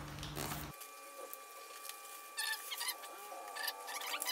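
Paper food wrapping and banana leaf rustling and crinkling as a takeaway rice parcel is opened by hand. The crinkles come in short bursts, loudest about two and a half and three and a half seconds in.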